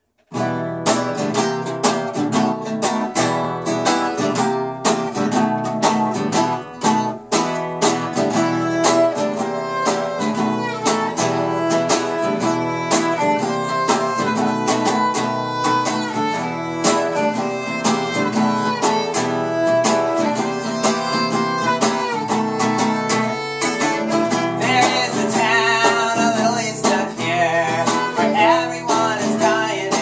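A fiddle and an acoustic guitar playing a tune together, the guitar strummed and the fiddle bowed over it; the music starts suddenly about half a second in.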